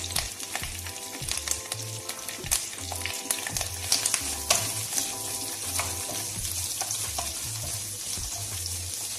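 Sliced onions sizzling and frying in hot coconut oil in a pan, stirred with a wooden spatula that scrapes and knocks against the pan now and then.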